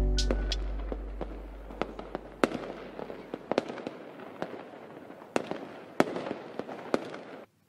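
Close handling of washi tape and scissors over a paper journal: irregular crackling, light taps and a few sharp clicks over a faint hiss, cutting off abruptly near the end.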